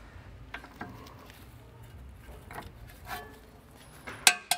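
Audi S3 rear brake caliper being slid over the new pads onto its carrier: light metallic clicks and scrapes, with a few sharper clinks that ring briefly near the end.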